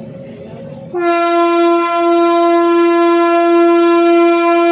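Locomotive air horn sounding one long, steady blast, starting about a second in, as the departure signal for the train pulling out.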